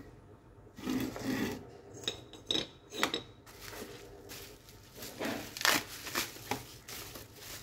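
Hard plastic parts being handled on a bench, with a few sharp clicks and knocks in the first half. A thin plastic bag then crinkles and rustles, louder, as it is wrapped around a white plastic casing.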